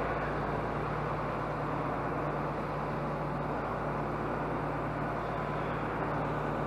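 John Deere tractor's six-cylinder diesel engine idling steadily.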